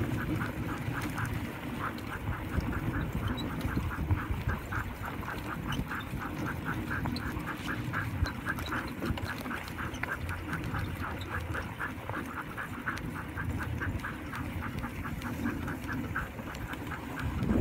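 A steady rhythmic squeak, about five a second, from a Fritz dog-training cart rolling behind a Siberian husky team, over the low rumble of its wheels on the snowy track.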